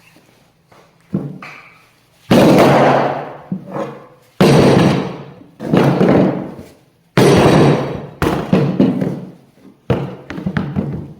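A series of about seven heavy thuds at irregular intervals, each hitting sharply and ringing out for a second or so.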